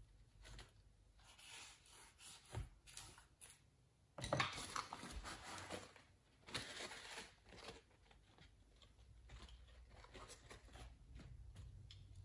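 A paper towel rustling and crinkling as it is handled and spread over the open laptop, with small clicks and taps from handling. There are two louder rustles, about four and about six and a half seconds in.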